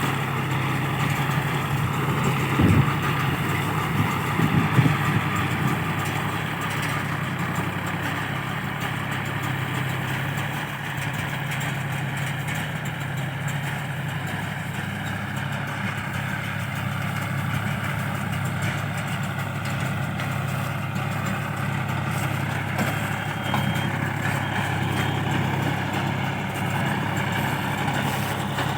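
Tractor engine running steadily as it drives a round straw baler, a constant low drone with machinery noise over it. There are a few short, louder knocks about three and five seconds in.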